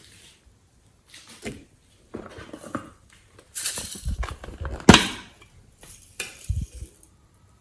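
Slime being mixed and squished by hand: irregular wet clicks and pops, busiest from about two seconds in, with one sharp loud snap about five seconds in.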